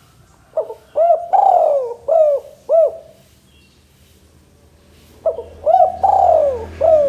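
Male spotted dove cooing in two phrases a couple of seconds apart. Each phrase is a few short coos around one longer, falling coo, and the second is cut off at the end.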